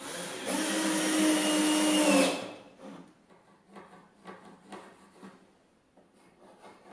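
Cordless drill boring into a pine board, running with a steady hum that grows louder for about two seconds and then stops. Then come faint scratches and taps of a pencil marking the wood.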